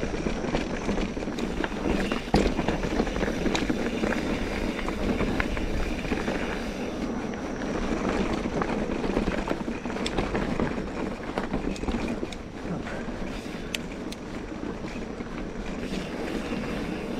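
Mountain bike rolling along a dirt cross-country trail, with wind buffeting the microphone over steady tyre noise. Scattered clicks and knocks come from the bike over bumps, the sharpest about two seconds in.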